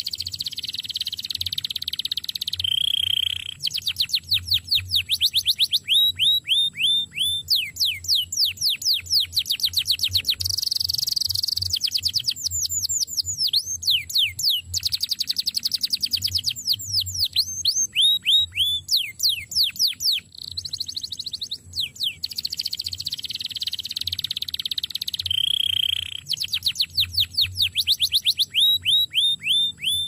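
Male domestic canary singing a long, continuous song. Runs of fast repeated down-sweeping notes alternate with buzzy rolls, and the phrase changes every few seconds.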